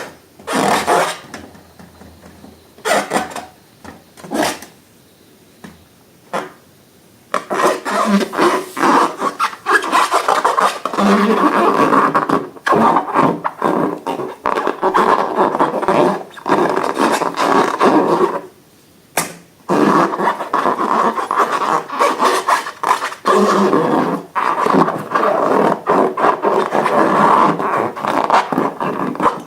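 Scattered short clicks, then from about seven seconds in a continuous close-up rubbing and scraping of slime and balloons being worked by hand, with one brief pause about two-thirds of the way through.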